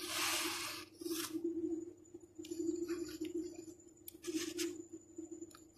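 Pen scratching on paper while writing a word by hand, in several short strokes, over a steady low hum.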